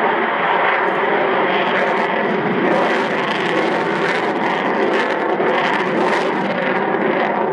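Avro Vulcan XH558's four Rolls-Royce Olympus turbojets running loud and steady as the delta-wing bomber banks overhead, with a crackling edge coming in from about two seconds in.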